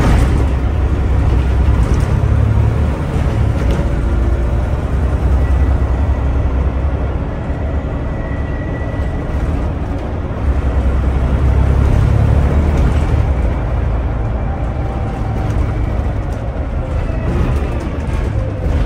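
Scania OmniDekka double-decker bus heard from the upper deck while under way: a steady low engine drone with road noise and interior rattles. The drone swells twice, at the start and again about ten seconds in, and eases off in between.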